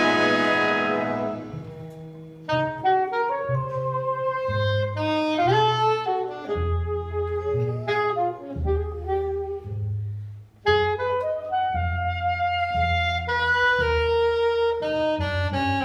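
A jazz band's full chord dies away, then an alto saxophone plays a solo melody over plucked upright bass notes, breaking off briefly about ten seconds in before going on.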